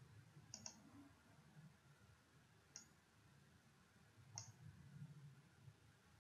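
Computer mouse clicking over near silence: a quick double click about half a second in, then single clicks near three and four and a half seconds.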